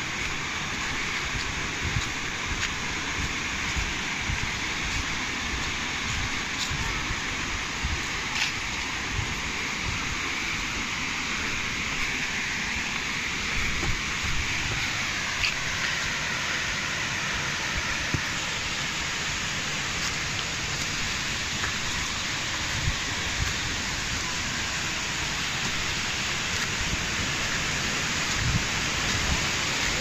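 Benlidere waterfall: a steady rush of falling, splashing water, with irregular low thumps underneath.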